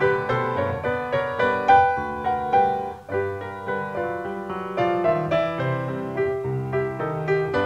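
Solo piano music: a slow, gentle melody of single notes over low bass notes, each note struck and fading.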